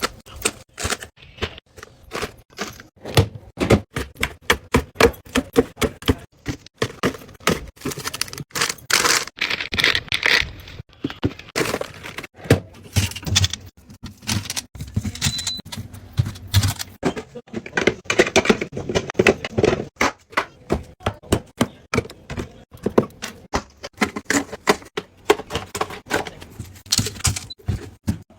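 A fast, irregular run of clicks, taps and knocks, like hard objects being handled and set down one after another.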